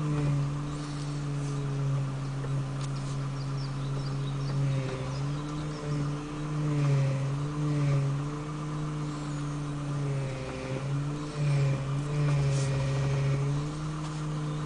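Mitsubishi Lancer 9 steering rack humming, a fault the video is showing: a steady low drone whose pitch dips and rises every second or two.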